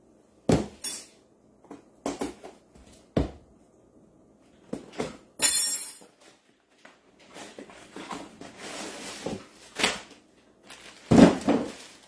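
Cardboard shipping box being handled and opened on a stone countertop: several sharp knocks, a brief tearing noise about five seconds in, then crackling of the plastic bag around a jersey as it is pulled out, and a loud knock near the end.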